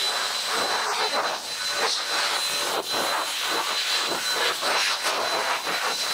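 Blaster Sidekick handheld air dryer running: a steady rush of air with a constant high motor whine, blowing water off a motorcycle's bodywork.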